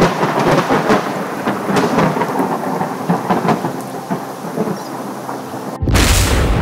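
Thunderstorm: steady rain with crackling, rolling thunder throughout. Near the end comes a sudden loud thunderclap with a deep rumble.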